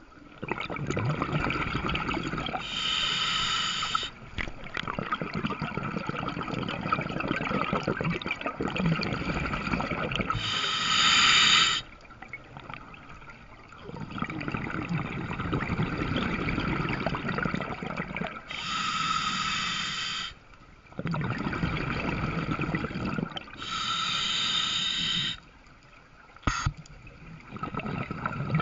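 Scuba regulator breathing underwater. Four short hissing inhalations through the demand valve alternate with longer gurgling rushes of exhaled bubbles, with one sharp click near the end.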